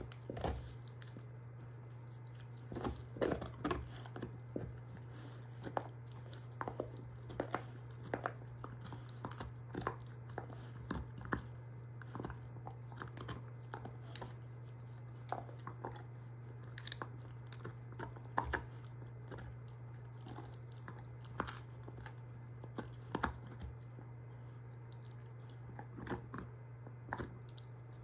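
German shorthaired pointer gnawing on a beef soup bone: irregular crunches and cracks of teeth on bone, with wet chewing, often several in quick succession, over a steady low background hum.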